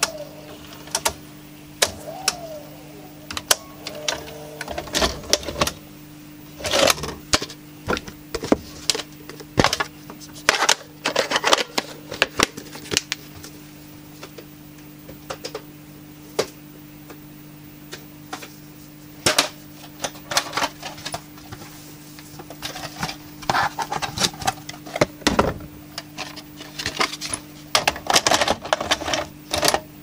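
Panasonic NV-F65 VHS recorder's mechanism and cassettes clicking and clacking: a short motor whirr about two seconds in, then scattered sharp clicks and knocks, over a steady low hum.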